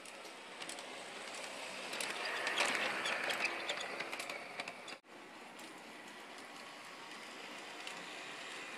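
G-scale model train running on track, a whirring rumble with sharp clicks that swells as it passes close, loudest about three seconds in. It cuts off abruptly about five seconds in and gives way to a quieter steady rumble of another model train running.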